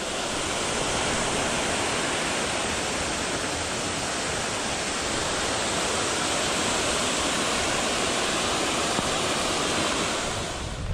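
Mountain stream cascading down a steep rocky gully: a steady rush of falling water that eases slightly near the end.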